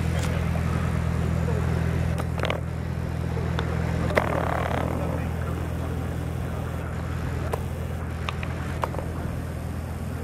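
A steady low machinery hum made of several deep, even tones. A few faint clicks and a short rustle come about four seconds in.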